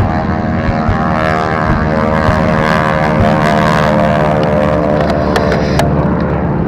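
Piston-engine propeller airplanes flying low past, their engines humming steadily with many overtones.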